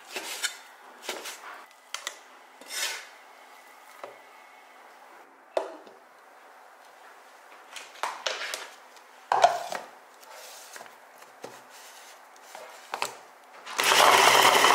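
Scattered knocks and clatter of kitchenware, then near the end an electric meat grinder switches on and runs with a loud steady whir as it grinds pork.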